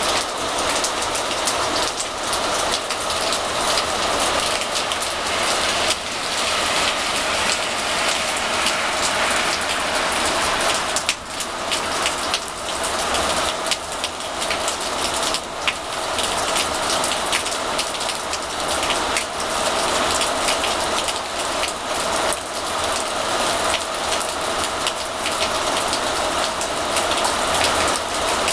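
Steady rain falling, a dense hiss of many small drop impacts on nearby surfaces.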